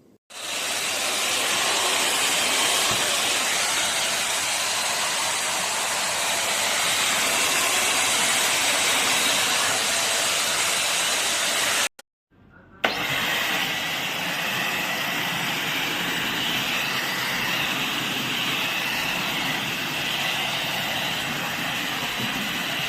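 Midea 2-in-1 stick vacuum cleaner running with a steady rush of motor and airflow noise. It starts right at the beginning, drops out completely for under a second about halfway through, then runs on with a slightly different tone that carries a faint high hum.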